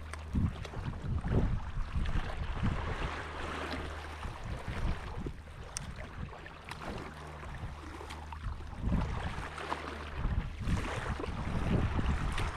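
Choppy lake water lapping and splashing around a paddleboard, with gusts of wind buffeting the microphone.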